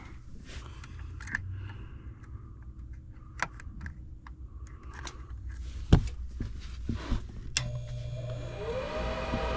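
Light clicks and taps of handling inside a furnace cabinet, then a sharp click about three-quarters in as the Goodman furnace's draft inducer motor starts: a low hum that whines up in pitch and settles to a steady running tone, the first stage of its start-up on a call for heat.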